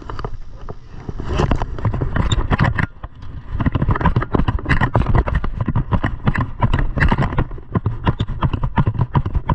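Quick footsteps on a concrete pier, several a second, mixed with thumps and rubbing from the camera being jostled as it moves.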